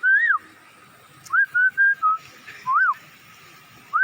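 A person whistling a bird-like animal call: a rising-and-falling whistled note, then a quick run of four short whistles about a second in, and another rising-and-falling note near the end.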